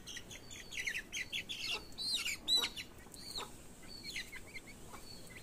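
Month-old chicken chicks peeping: many short, high chirps, thickest in the first three seconds and thinning out toward the end.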